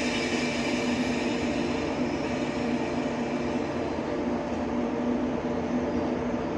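JR Kyushu 415 series electric local train pulling out of the platform, its motors and wheels giving a steady hum and rumble.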